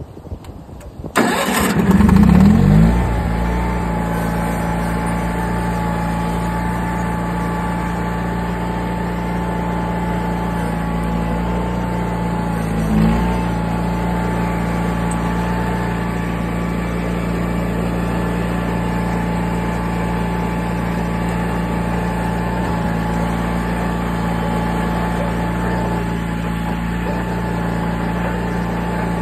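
John Deere lawn and garden tractor engine starting: it catches about a second in, revs up briefly, then settles into a steady, even run as the tractor drives off. A quick, clean start. One brief rise in revs comes about halfway through.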